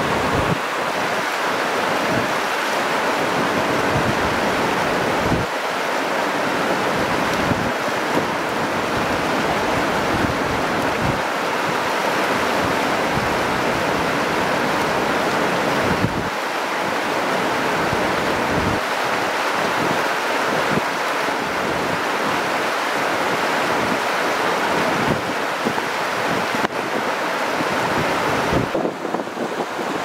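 Steady rush of river water pouring over a low concrete weir, with occasional wind buffeting on the microphone.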